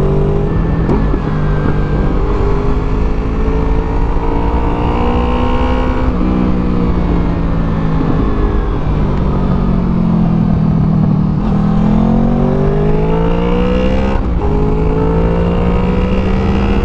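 2014 Honda VFR800F's V4 engine through a Delkevic exhaust, accelerating through the gears: the pitch climbs steadily and drops back at upshifts about six, eleven and a half and fourteen seconds in. Around ten seconds in it falls away briefly, as if easing off, then rises again.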